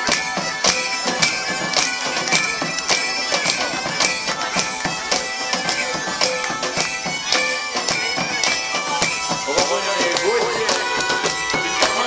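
Bagpipes playing a folk tune over steady drones, with a drum keeping a steady beat about twice a second.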